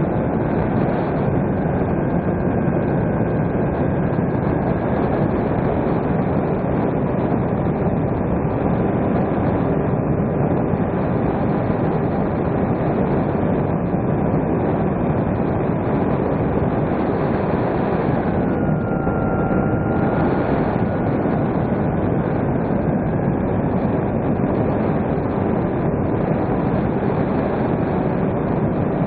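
Steady rush of wind and electric motor and propeller noise from a small electric RC plane's onboard camera. A faint motor whine runs underneath; about two thirds of the way in it dips lower in pitch, then rises again.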